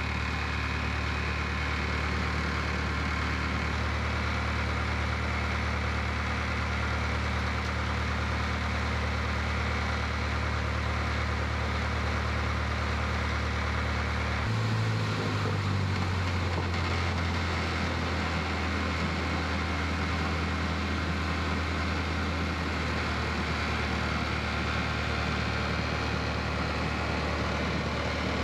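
Single-engine Cessna's piston engine and propeller running at taxi power, heard from inside the cabin as a steady drone. Its note changes suddenly about halfway through, then holds steady again.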